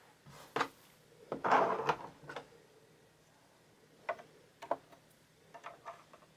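Light clicks and taps of hands handling a sewing machine's parts around the bobbin area, the plastic bobbin cover among them, with a brief scraping rustle about a second and a half in.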